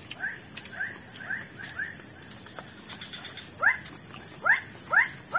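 An animal giving a string of short, upward-sweeping calls. They are faint and spaced at first, then louder and about two a second from a little past halfway.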